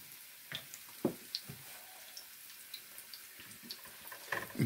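Hot oil sizzling softly around battered Oreo cookies frying in a pot, with a few light taps and clinks of a utensil against a metal bowl, the loudest near the end.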